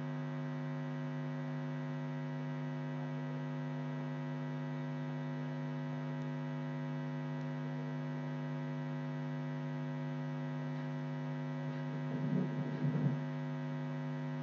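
Steady electrical hum with many evenly spaced tones stacked above it, the background of the narration recording. About twelve seconds in, a short, louder irregular noise lasts about a second.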